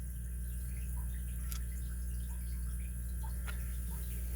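Steady low hum with a few faint, light clicks and ticks from small metal lock parts being handled.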